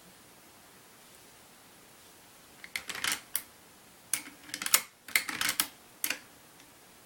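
Handling of a Marlin 336 lever-action rifle: clusters of sharp metal clicks and clacks, starting a little under three seconds in and coming in four quick groups.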